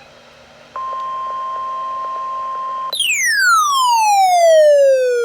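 Electronic emergency-alert tones: a steady beep that holds for about two seconds, then a loud tone that glides steadily down in pitch, like a siren winding down, and is still falling at the end.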